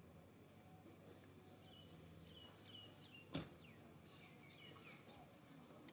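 Near silence: faint outdoor ambience with a few faint high chirps in two short runs and one sharp click about three seconds in.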